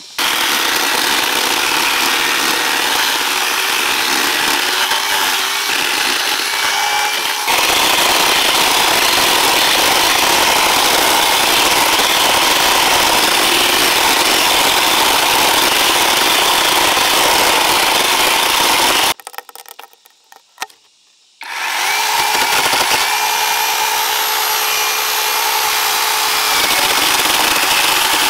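A power tool runs loudly and steadily while cutting. It takes on a heavier, fuller sound about seven seconds in, cuts out about 19 seconds in, and starts up again about two seconds later.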